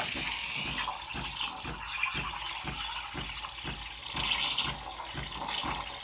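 Espresso machine steam wand hissing loudly, then cut down sharply about a second in to a quieter rushing with a fast low pulsing, about four beats a second. A brief loud burst of hiss returns around four seconds in.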